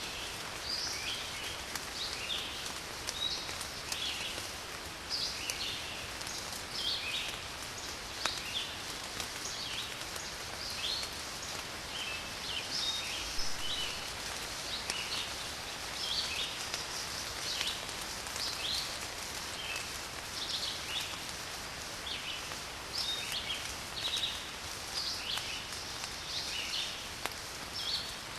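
Steady rain falling with scattered distinct drops, and garden birds chirping over it in short high calls, about one a second.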